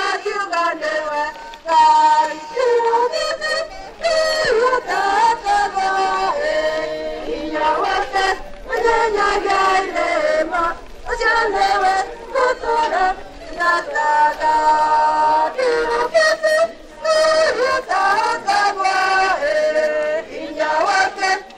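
Voices singing a melody, in phrases with short breaks between them.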